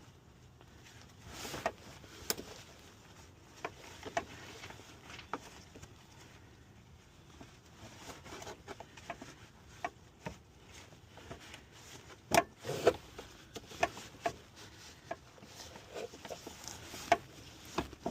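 Scattered light clicks and knocks of hands working metal and plastic shifter parts, as the short-throw shifter assembly and its shift cables are fitted back on; a few louder knocks come about twelve to thirteen seconds in.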